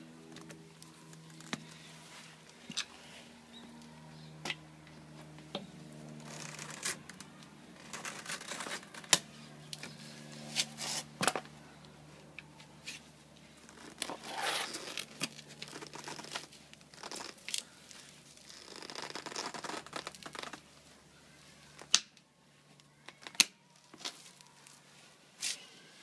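A metal-link tire chain with plastic arms being handled and fitted onto a car tire by gloved hands: irregular sharp clicks and clacks of links and plastic parts, with rustling and scraping, busiest in the middle.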